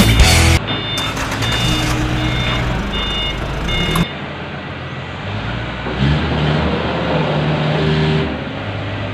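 Heli 7-ton forklift's Isuzu 6BG1 six-cylinder diesel engine running, with its reversing alarm beeping about every 0.6 seconds for the first few seconds. The engine pulls harder from about six seconds in and eases off again near eight.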